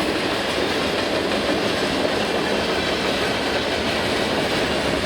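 Freight cars of a passing Canadian Pacific freight train rolling by, a steady noise of steel wheels on the rails.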